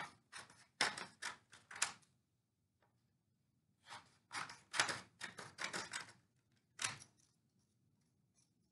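Scissors cutting strips of construction paper: a run of short, crisp snips, a pause of about two seconds, then a second run of snips, with one last snip about seven seconds in.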